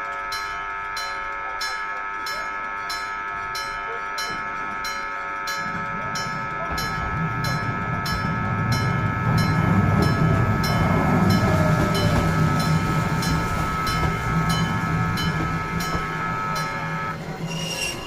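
Level crossing warning bell on the Keifuku Randen tram line ringing in a steady rhythm of about two strikes a second, stopping about a second before the end. From about six seconds in, a tram rumbles through the crossing, loudest around the middle.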